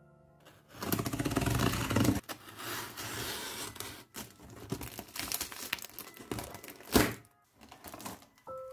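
A craft knife slicing through packing tape on a cardboard box, a dense scratchy rasp, followed by scraping and rustling of cardboard and plastic wrap. A sharp thunk about seven seconds in is the loudest sound.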